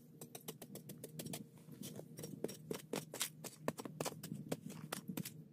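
Metal blade scraping and chipping at the dried-mud shell of a small charcoal kiln, with clods of clay cracking off: a quick, irregular run of scrapes and clicks as the kiln is broken open.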